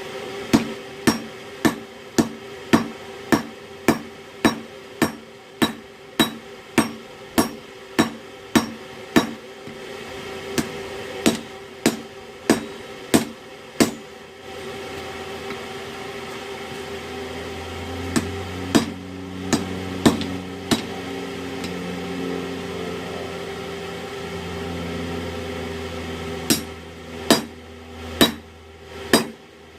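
Blacksmith's hammer striking a hot steel axe head of forged rebar on an anvil in a steady rhythm, about two blows a second, hammering the fish flip back down. The blows stop for about ten seconds around the middle, with a few single strikes, while a steady hum goes on underneath, then resume near the end.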